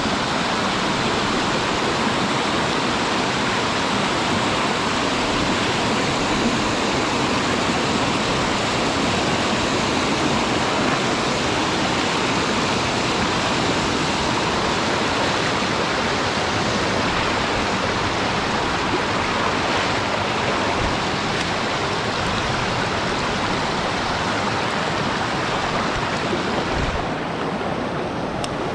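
Rushing water spilling over and through a small makeshift rock-and-brush dam in a shallow river: a steady rush of white water, easing slightly near the end.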